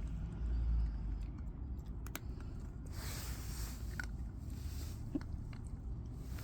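A toy Cavoodle puppy at its snack and water: faint scattered clicks and brief rustles from its mouth and bowl over a low steady hum.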